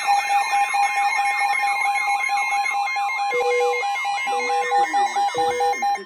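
Several weather alert radios sounding their alarms together for a severe thunderstorm warning: a warbling siren-like sweep about three times a second over steady and stepped high beeping tones. About halfway through, a lower beep joins about once a second, three times. All the alarms cut off together at the end.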